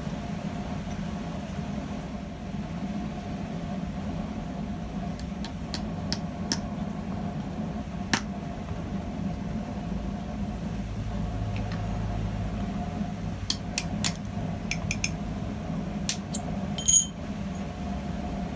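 Light metallic clinks of steel tools and small rivet stock being handled at the forge, over a steady low hum, with one brighter ringing clink of metal near the end.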